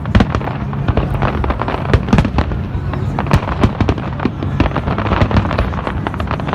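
Fireworks display going off continuously, a dense run of sharp bangs and crackles, many each second, over a low rumble.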